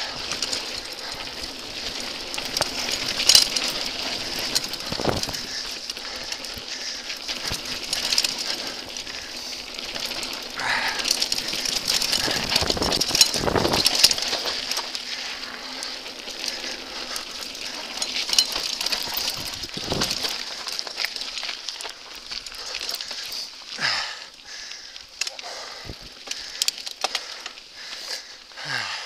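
Mountain bike descending a dry dirt singletrack, heard from a chest-mounted camera: tyres rolling on dirt and the bike rattling, with frequent sharp clicks and knocks over bumps and roots.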